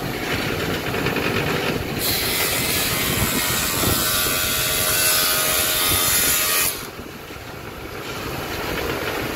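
Table saw cutting a 4 mm acrylic sheet. The saw runs steadily, then about two seconds in the blade bites into the sheet with a loud, harsh, hissing cutting noise that lasts about five seconds and stops abruptly as the cut ends, leaving the saw running free.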